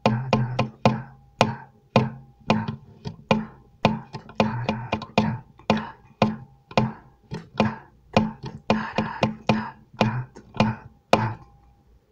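Acoustic guitar playing a slow bossa nova rhythm: thumb bass notes under chords plucked with three fingers together, in a syncopated pattern of sharp plucks, stopping about a second before the end.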